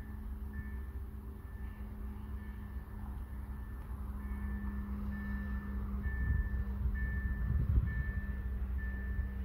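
Freight train of cement hopper wagons rolling past, a steady low rumble that grows louder in the second half. A short high electronic beep repeats about once a second throughout.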